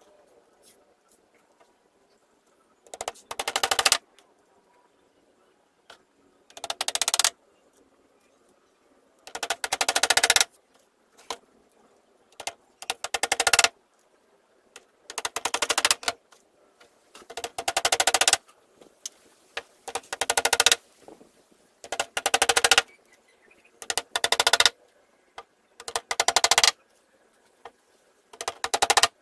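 Hammer driving small nails through a plywood skin into a wooden door frame: each nail takes a quick run of taps that grow louder as it goes in, about eleven nails at one every two to three seconds.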